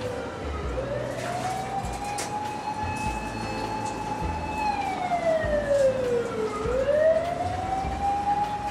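Emergency vehicle siren wailing: one tone held high, then about halfway through falling over some two seconds and sliding back up to its high pitch.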